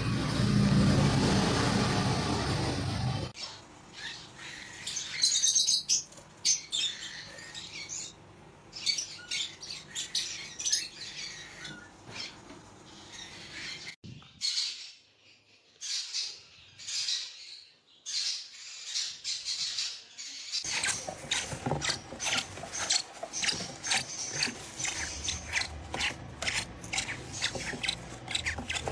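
Parrot chirping and squeaking in short high calls among many quick clicks and scratchy noises. A loud, noisy passage fills the first three seconds, and it goes nearly quiet for a few seconds in the middle.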